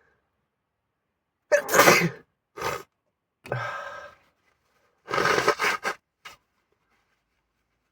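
A person sneezing hard twice, about a second and a half in and again about five seconds in, with short breathy sounds between and just after the sneezes.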